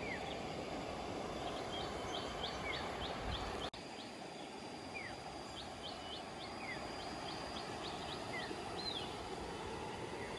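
Wild birds calling over a steady rural outdoor hiss: single short whistled notes that slide downward, repeated every second or two, and two quick runs of high, short clipped notes. The sound drops out for an instant about a third of the way in.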